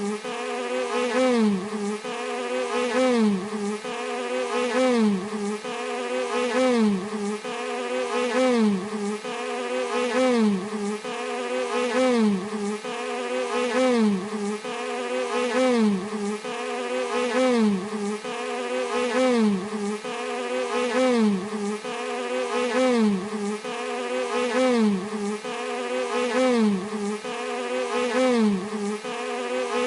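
Bee buzzing on a continuous track, the pitch and loudness swelling and falling about once a second in a regular cycle.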